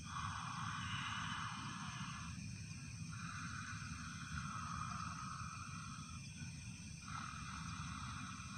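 A man in a spirit-possession trance hissing out long breaths, three of them, each two to three seconds long. Night insects chirr steadily under them.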